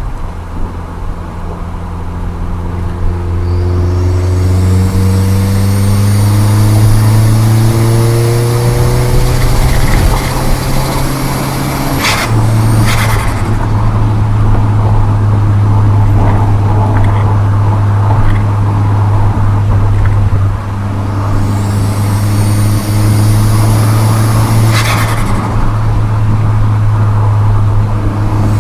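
Volkswagen Golf GTI MK4's 1.8 20-valve turbo four-cylinder accelerating hard, its pitch rising with a high turbo whistle climbing as the turbo spools and pressurises. About twelve seconds in the throttle is lifted and the turbo flutters. The engine pulls again with another whistle, and it flutters again near the end.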